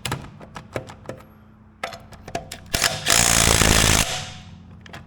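DeWalt 20V brushless 3/8-inch cordless impact wrench hammering in one burst of about a second, roughly three seconds in, tightening a wheel lug nut. A few light clicks and knocks come before it.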